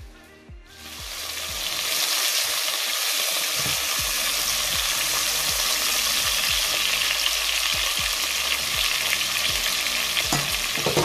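Marinated chicken pieces searing in hot olive oil in a pot: a steady, loud frying sizzle that swells up within the first second or two and then holds.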